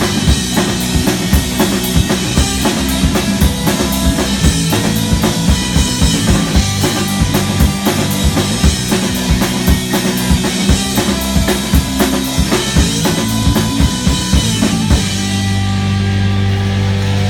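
Rock band playing live: a drum kit hitting busily over sustained bass and guitar chords. About fifteen seconds in the drums stop and a final chord is held and left ringing, the end of the song.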